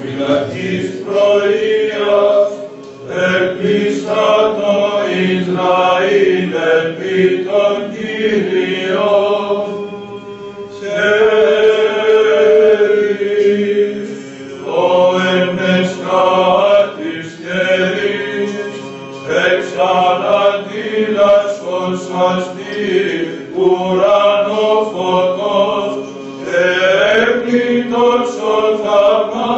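Male Greek Orthodox Byzantine chant: a small group of cantors singing a hymn, a moving melody over a steady low held note, with a brief breath pause about ten seconds in.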